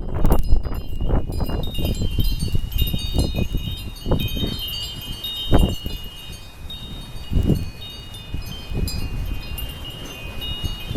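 Metal wind chimes ringing continuously in a gusty windstorm, with overlapping high tones. Wind gusts across the microphone, strongest in the first couple of seconds and again in short bursts later.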